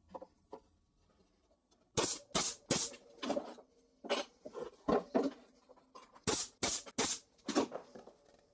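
Brad nailer driving brads into plywood braces: about a dozen sharp shots in quick clusters, starting about two seconds in, after a few faint knocks as the brace is set in place.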